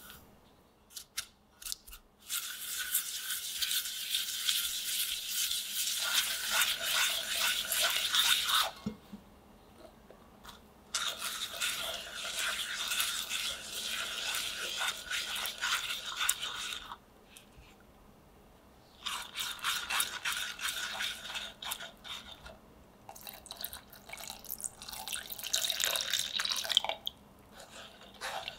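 A whisk and a silicone spatula stirring and scraping egg yolks, sugar, cornstarch and milk in a saucepan. The stirring comes in runs of several seconds with short pauses, after a few light ticks at the start.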